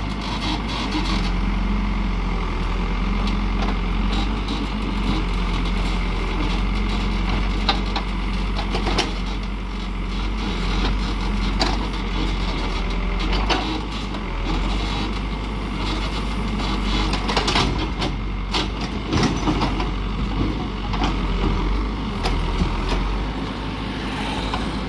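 Heavy diesel construction machinery running steadily, with scattered sharp knocks and clanks over the engine.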